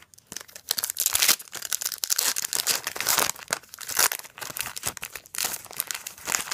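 Trading-card pack wrappers being torn open and crinkled by hand: a dense, irregular crackling and ripping.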